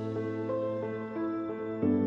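Gentle new-age background music: soft, sustained notes over a steady low chord, the melody moving every half second or so and the chord changing near the end.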